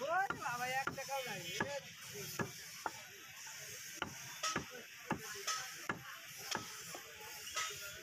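Heavy butcher's knife chopping beef on a wooden log chopping block: a string of sharp, irregular chops, about two a second. A brief wavering high call sounds in the background near the start.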